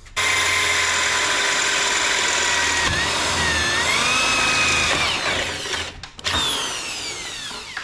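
Corded electric drill boring through an aluminium ladder channel: a steady whine that dips in pitch as the bit bites, then winds down about five seconds in. A short second run follows near the end, falling in pitch as the drill coasts to a stop.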